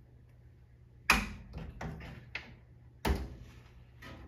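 A fine-mesh metal sieve knocked against a stainless steel bowl to shake flour through: a series of sharp metallic knocks, the loudest about a second in and another strong one about three seconds in.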